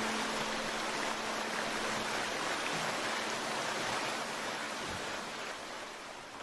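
Water of a mountain stream rushing over rocks, a steady even rush that fades away near the end.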